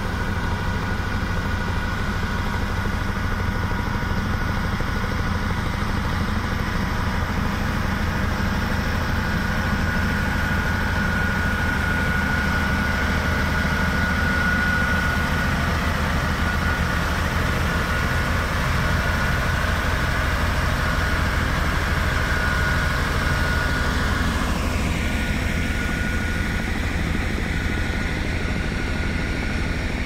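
The turbocharged Shangchai diesel engine of an XCMG XS203J 20-ton single-drum vibratory road roller runs steadily under load, a low, even engine note with a steady high whine over it. Late on, a second whine falls in pitch.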